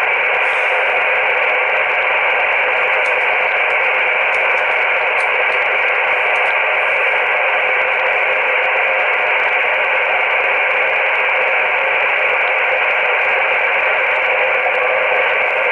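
Icom IC-718 HF transceiver receiving on upper sideband with no station transmitting, putting out steady static hiss through its speaker. The hiss is narrowed by the sideband filter into a thin, radio-like band of noise.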